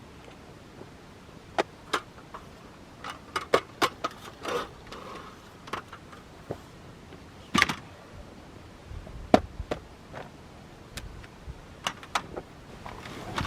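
Camping gear being handled and packed: a string of irregular light clicks, taps and knocks with some soft rustling, the loudest knocks about halfway through.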